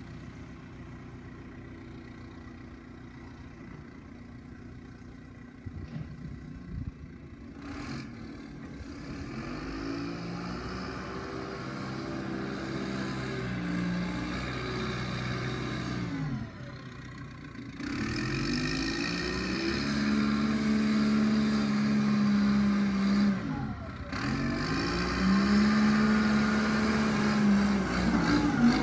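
John Deere 310 backhoe's diesel engine running steadily, then from about eight seconds in revving up and dropping back again and again, growing louder toward the end.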